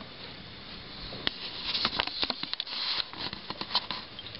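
Footsteps crunching through snow: a run of irregular short crunches starting about a second in, over a faint steady hiss.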